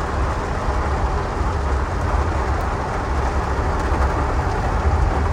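Steady noise inside a car during a heavy rainstorm: a deep rumble from the car with an even rush of rain and water over it.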